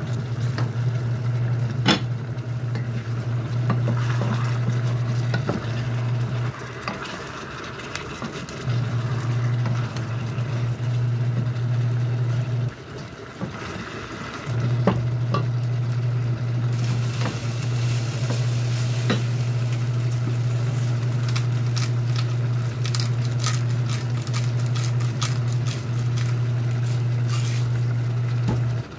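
Wooden spoon stirring chicken adobo in a stainless steel pot, with scattered clicks and scrapes against the pot, while the sauce sizzles as it cooks down almost dry. A loud steady low hum runs underneath and drops out twice, around seven and thirteen seconds in.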